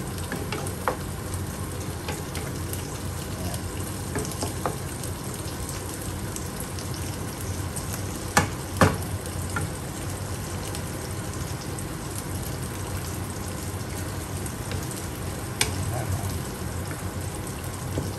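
Spinach cooking in its own released juices in a frying pan, a steady sizzle throughout. A wooden spatula stirs it and knocks against the pan a few times, most sharply twice a little before halfway through and once more near the end.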